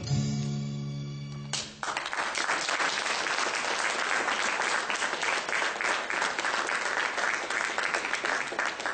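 Dance music ends on a held final chord about a second and a half in, followed straight away by audience applause that keeps going.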